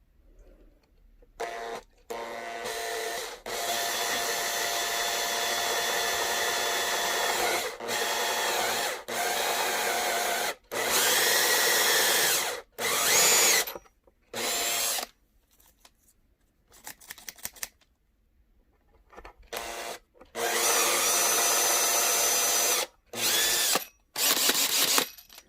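Power drill boring a hole into a wooden skateboard deck for a thread insert, run in a series of trigger bursts of one to four seconds with short pauses between. The motor's pitch dips at times.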